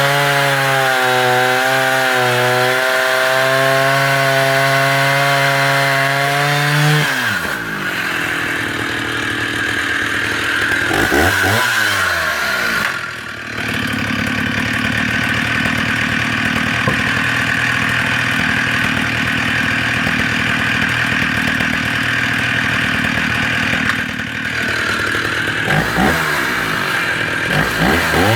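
Stihl 045 AV 75cc two-stroke chainsaw running at full throttle. After about seven seconds its note drops and gives way to the rough rasp of the chain cutting through a larch log, the engine not bogging down in the cut. Near the end it revs freely again with a high, steady note.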